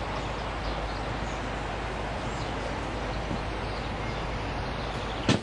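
Steady outdoor rural background hiss with a few faint high chirps. A single sharp knock comes near the end.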